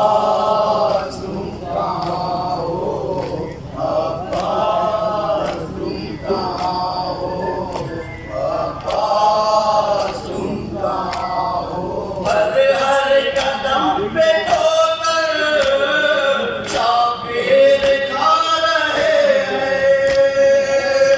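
Men chanting a noha (Shia mourning lament) into a microphone, over a steady beat of chest-beating slaps (matam) about once a second. About twelve seconds in, more voices join and the chanting grows louder and fuller.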